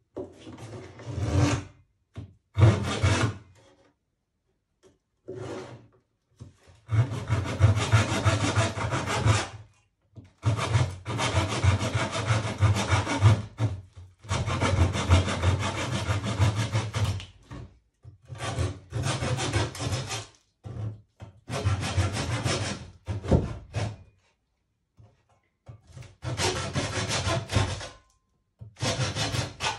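Rubbing and scraping on a wooden-framed canvas, in about ten bursts of half a second to three seconds with short pauses between. Some bursts are steady back-and-forth strokes.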